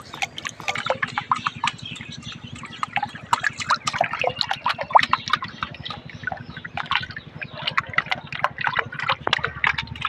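Shallow water splashing and sloshing in quick, irregular spurts around a plastic bottle fish trap jerking about in the water, the sign of fish trapped inside thrashing.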